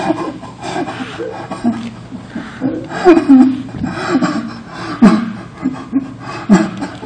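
A man's voice making short, breathy sounds without words in irregular bursts, several of them falling in pitch, with sharp peaks about three, five and six and a half seconds in.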